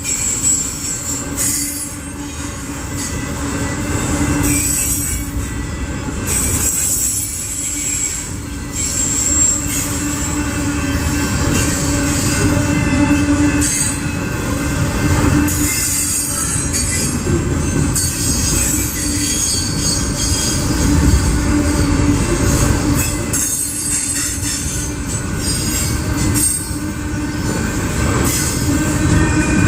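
BNSF freight train's cars rolling past with a continuous loud rumble, the wheels squealing intermittently against the rails.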